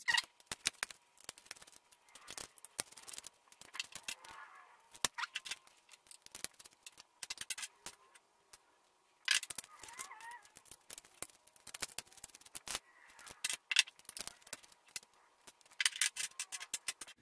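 Many light, irregular clicks and clatters of small plastic model parts being handled, pried apart and set down as 1/64-scale New Holland combines are taken apart, with a brief silent gap a little past halfway.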